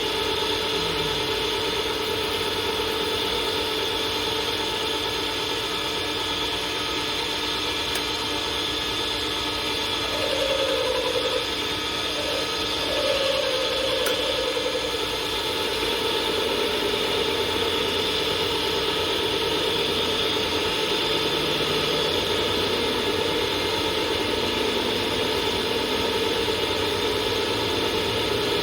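A machine running steadily, with a constant hum and a noisy whir, its pitch wavering briefly partway through.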